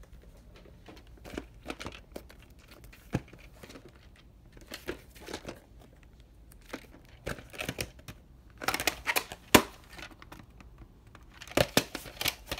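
Hands handling a plastic clamshell VHS case and its cassette: scattered clicks and rustles, busier in a burst past the middle and again near the end, with one sharp click about three quarters of the way in.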